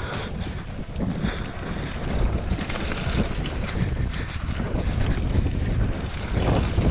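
Wind buffeting the microphone over the rumble of a mountain bike riding a dirt singletrack, with short rattles and clicks from the bike over bumps.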